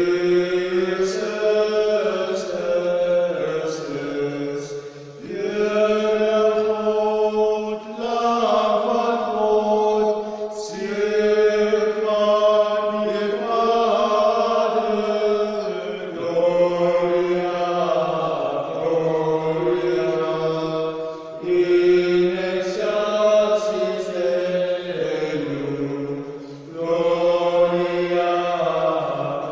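Men's voices singing a slow liturgical chant in long held notes, in phrases of a few seconds with short breaks for breath between them.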